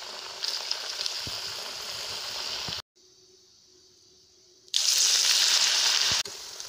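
Onion bonda batter deep-frying in hot oil, a steady sizzle. It drops out for about two seconds, then a fresh lump of batter goes into the oil and the sizzle comes back much louder, easing to a steadier sizzle near the end.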